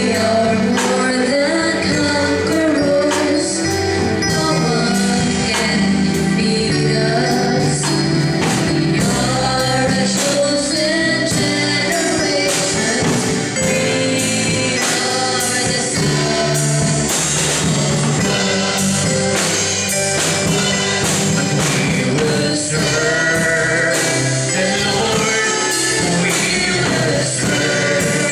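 A man singing a gospel worship song through a handheld microphone, over instrumental accompaniment with a steady beat.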